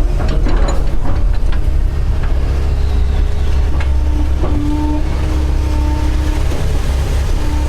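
Doosan DX140 excavator's diesel engine running steadily under working load, with a hydraulic whine that comes and goes in the second half. Sharp cracks and knocks sound in a cluster in the first second and a half, with a couple more later.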